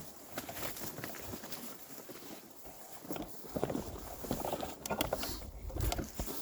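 Footsteps pushing through woodland undergrowth: leaves and brush rustle and crunch, with sharp snaps of twigs underfoot at an uneven pace.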